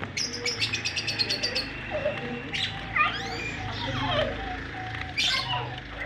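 Lovebirds chirping: a quick run of short, high chirps, then several sweeping calls and a sharp squawk-like note, over a steady low hum.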